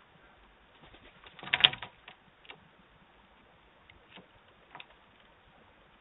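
A magpie landing at the doorbell camera: a short flurry of scratchy clicks and taps about a second and a half in, then a few single taps.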